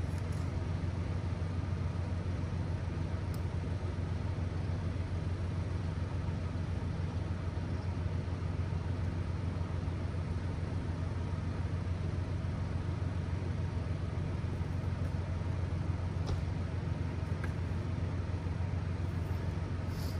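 A motor vehicle's engine idling steadily: an even low hum with a fast, regular pulse that does not change.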